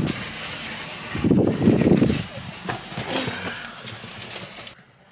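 Groceries being loaded from a shopping cart into a car's trunk: rustling and rattling, loudest a little over a second in, then dropping off sharply near the end.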